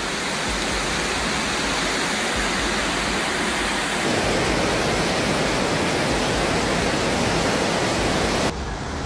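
Fast-flowing flash-flood water rushing in a steady, even rush. The rush grows fuller about four seconds in and drops off abruptly near the end.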